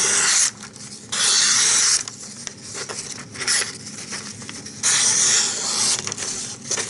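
Bark River Bushcrafter knife slicing through paper in three long hissing cuts of about a second each, with quieter gaps between: a sharpness test of the edge fresh off a 5,000-grit stone.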